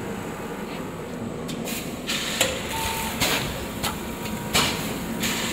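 TIULMAX MAAT-2x3L vertical form-fill-seal packaging machine running through its bagging cycle. Over a steady hum come sharp clacks and short hissing bursts as the sealing jaws close and open, repeating about every three seconds.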